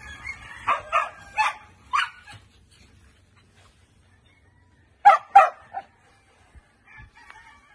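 Dog barking: a quick run of four barks in the first two seconds, then, after a pause, two loud barks about five seconds in with a smaller one after.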